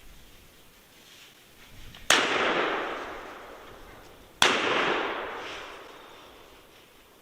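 Two shotgun shots about two seconds apart, each ringing and echoing away for a couple of seconds: a first shot that hits a turkey, then a follow-up shot to finish it.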